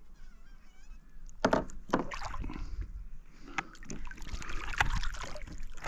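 Water splashing and sloshing against a fishing kayak, with sharp knocks and clatter on the hull and gear, starting about a second and a half in, while a squid is fought and grabbed at the side of the boat.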